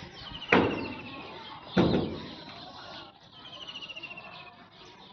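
Two sudden loud thumps about a second and a quarter apart, each fading over about a second. A rapid high trill, perhaps a bird's, sounds twice: once over the first thump and again about three and a half seconds in.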